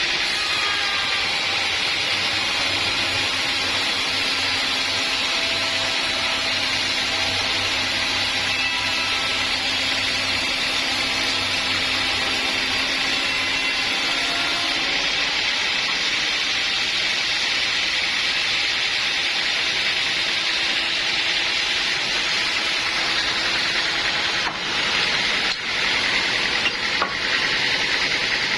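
Sawmill saw cutting through a log: a steady, continuous rasping cut. A faint tone in it stops about halfway through, and the sound dips briefly a few times near the end.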